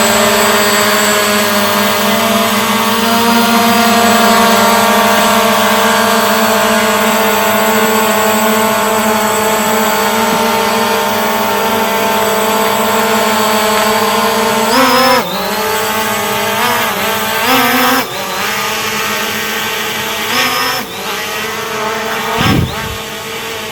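SG906 Pro 2 quadcopter's propellers whining steadily in flight, with the pitch dipping and rising several times in the second half as the throttle changes. A brief low thump near the end.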